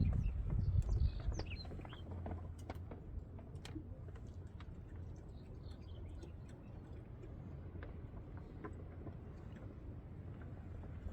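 Birds chirping in short, high calls, mostly in the first second or so, with scattered light clicks over a low steady rumble.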